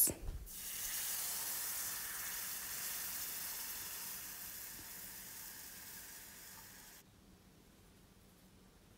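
Coconut milk hitting a hot pan of sautéed onion, garlic and curry powder, sizzling. The sizzle is strongest at first, fades gradually over several seconds and then cuts off abruptly about seven seconds in.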